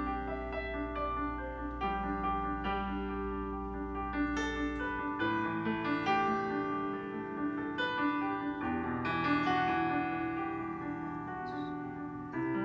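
Background music led by piano, with sustained chords that change every second or two and a low bass tone under the first five seconds.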